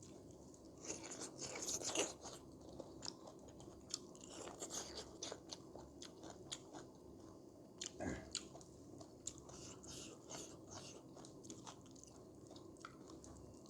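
A person chewing and crunching food close to the microphone, with many small wet mouth clicks and crackles, busiest near the start, and a short louder sound about eight seconds in.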